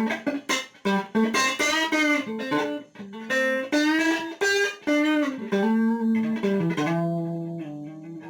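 Electric guitar played through a compressor with sustain and attack both set halfway: a quick phrase of single notes with string bends, then a held note that rings on and fades slowly near the end.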